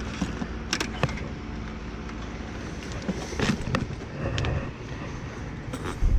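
A few sharp clicks and knocks from hands and tools working on an air-conditioner's outdoor condenser unit, over a steady low rumble, with a heavier thump at the very end.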